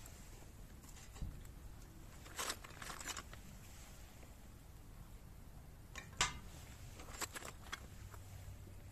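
Scattered light cracks and clicks from a small wood campfire and dry kindling sticks being placed into it, a handful of them and no steady rhythm; the loudest comes a little after six seconds in.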